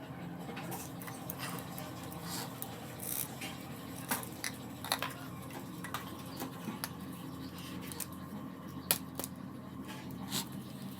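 Scattered light clicks and clinks of small hard objects being handled, over a faint steady hum.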